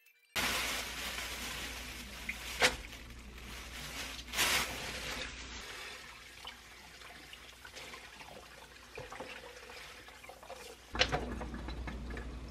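Kitchen tap running onto mung bean sprouts being rinsed in a metal mesh strainer over a basin in the sink, starting suddenly and easing off after about six seconds. A few sharp clacks come through the water.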